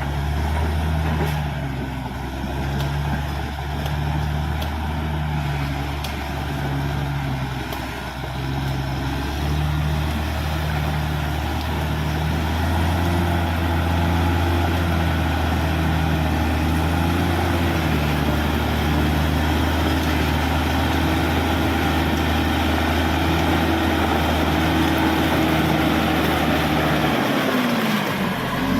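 Caterpillar D6R XL bulldozer's diesel engine running steadily with a low drone, its pitch dipping and rising again near the end.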